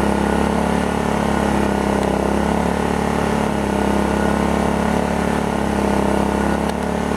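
Predator inverter generator's small engine running at a steady pitch while it powers a camper's air conditioner and refrigerator.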